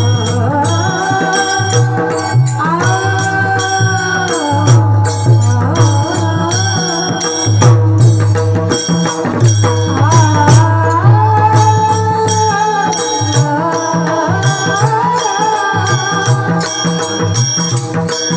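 Devotional bhajan music: a mridang (barrel drum) played in fast strokes, with ringing hand cymbals, a steady low drone and a melodic line of held notes that glide between pitches.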